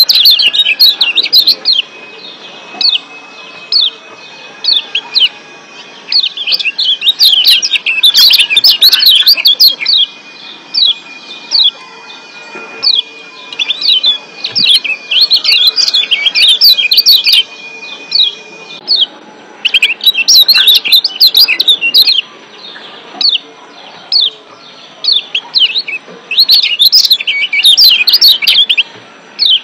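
Kecial kuning (Lombok yellow white-eye, a Zosterops) calling: rapid, sharp down-slurred 'ciak' chirps in loud flurries every few seconds, with sparser single chirps between.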